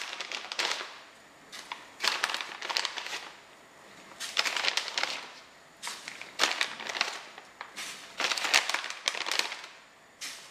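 Plastic bag of cassava crinkling in repeated bursts every couple of seconds as a hand reaches in and pulls out pieces.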